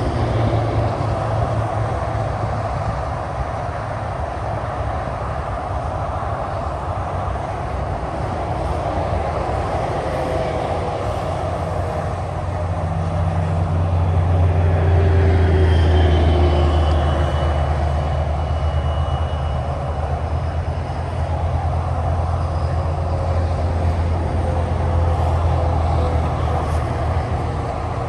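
Steady interstate highway traffic: a continuous rush of tyres on pavement with engine rumble from passing cars and trucks. A deep engine drone builds and the sound swells louder around the middle.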